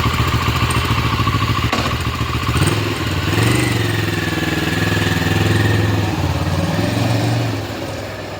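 Kawasaki Versys 650 parallel-twin motorcycle engine running, revving up about three seconds in, holding, then easing off near the end. The engine has just had water cleared from its spark plug coil boots after misfiring.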